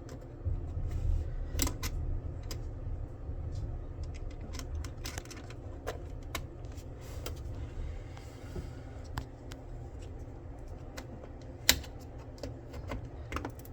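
Scattered small plastic clicks and taps of a DDR5 RAM stick being handled, lined up and pressed into a motherboard slot, with one sharper click near the end.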